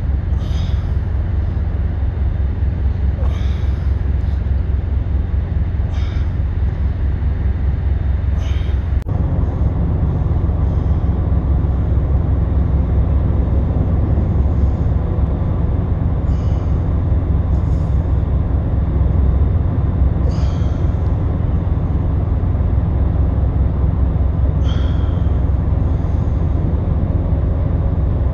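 Steady low rumble of idling diesel trucks, with short hissing sounds every few seconds.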